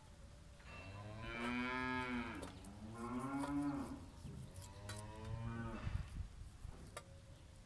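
Cattle mooing: three long drawn-out moos one after another, each rising and then falling in pitch, with a few faint clicks around them.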